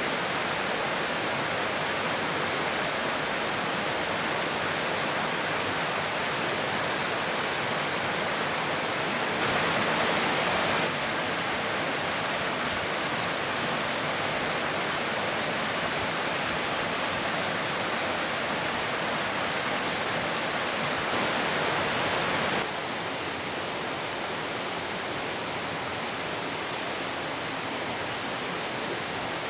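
Steady rushing of a small river's water running over rocks. It turns a little quieter about two-thirds of the way through.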